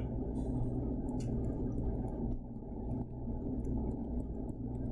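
Steady low background hum, with faint scattered light ticks of a stylus writing on a tablet screen.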